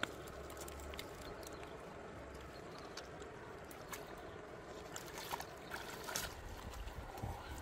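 River water lapping and trickling steadily at the bank, with a few faint light clicks over it.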